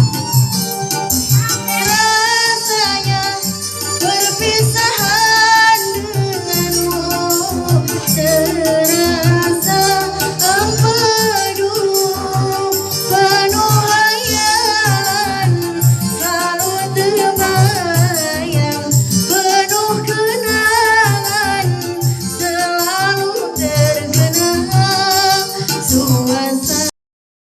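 Singing practice: a voice sings a wavering melody over a backing track with a steady beat and a light rattle. Everything cuts to silence for a moment near the end.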